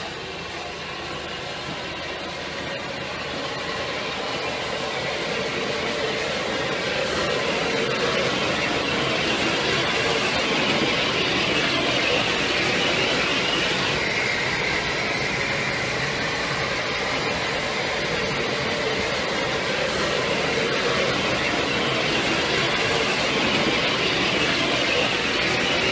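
SR Merchant Navy class 35006, a three-cylinder 4-6-2 steam locomotive, moving slowly past at close range with a steady hiss of steam and rail noise. It grows louder over the first several seconds as it draws near, then holds steady.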